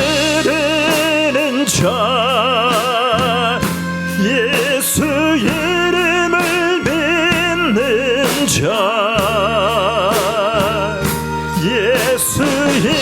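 Gospel song: a voice singing long held notes with a wide vibrato over sustained accompaniment chords.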